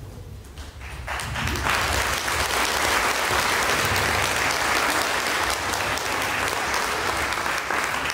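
Audience applauding. The clapping swells about a second in and then holds steady.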